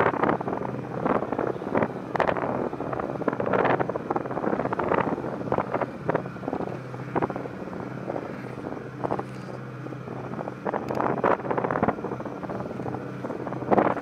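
Wind buffeting the microphone in irregular gusts aboard a moving motorboat, over the boat engine's steady hum.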